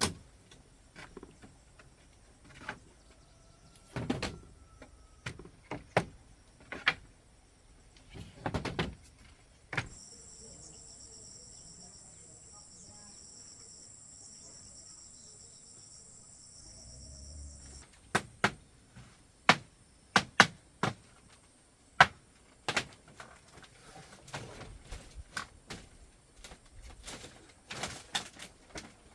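Irregular sharp knocks and taps, as of work on wood or bamboo. From about a third of the way in, an insect trills steadily and high for about eight seconds, then stops suddenly.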